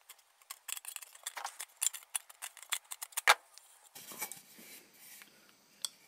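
Pliers crimping the jagged cut rim of a steel tin can flat: a run of sharp metal clicks, the loudest a little past three seconds in, then softer scraping as the can is handled and turned.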